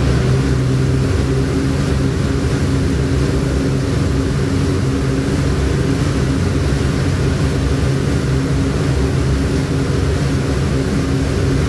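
Dual-action air bike's fan wheel spinning fast under an all-out sprint: a loud, steady rush of air with a low hum.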